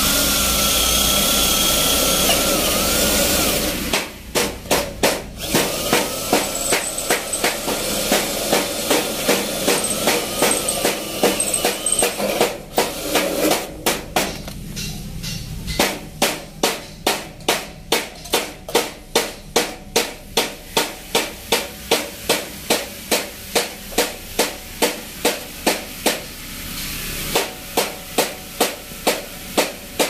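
Cordless drill boring through a galvanised steel cable trunking joint, a steady drilling noise with a wavering squeal that stops about four seconds in. Then a long run of sharp, evenly spaced knocks, about two a second.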